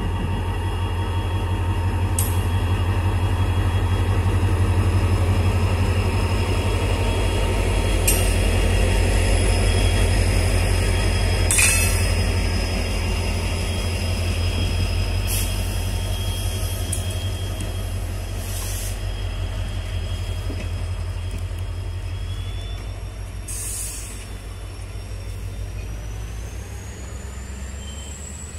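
An EMD WDP-4D diesel-electric locomotive's 16-cylinder two-stroke engine passing close with a deep pulsing rumble. It is loudest in the first half, then fades as the passenger coaches roll by, with a few sharp clanks along the way.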